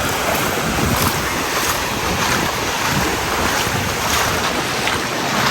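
Steady rushing noise of ocean surf, with wind buffeting the microphone.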